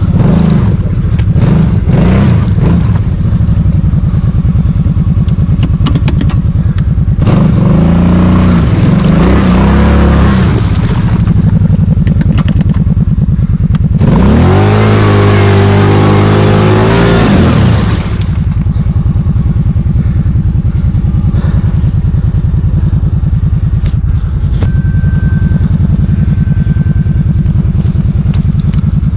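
ATV (quad bike) engine running hard, revving up and down in three surges with the pitch climbing and falling, then settling to a steadier note for the last ten seconds or so.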